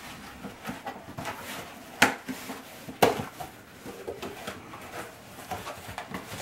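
Cardboard shipping box being opened by hand, its old packing tape pulled off and the flaps rustling, with two sharp rips about a second apart near the middle.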